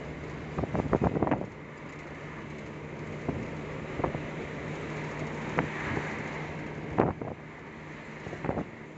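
Steady engine hum and road noise inside a moving vehicle's cabin, broken by a quick cluster of sharp rattling knocks about a second in and single knocks every second or two after.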